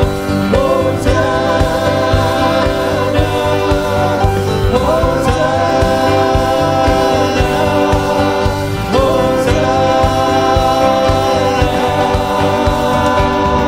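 A hymn sung to instrumental accompaniment, in phrases of long held notes over sustained chords.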